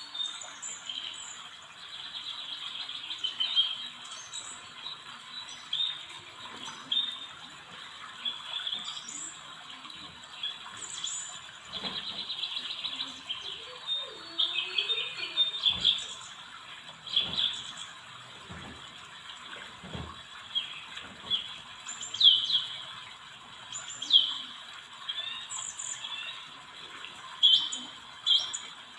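Small birds chirping and twittering, many short repeated calls, with a few soft knocks from handling in the middle.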